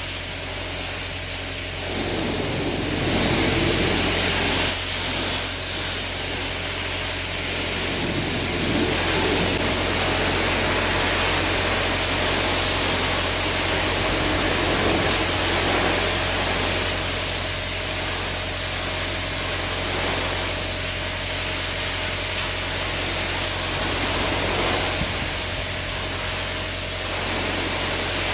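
Pressure washer spraying a steady hiss of water while washing out cow cubicles, with the machine's steady hum underneath.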